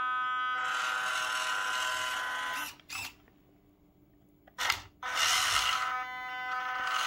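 WPL C24-1 RC crawler's 180 brushed motor and gear drivetrain running with a steady, noisy whine as the truck drives on a tabletop. It stops a little under three seconds in, with a click, falls quiet, and after another click starts whining again about five seconds in.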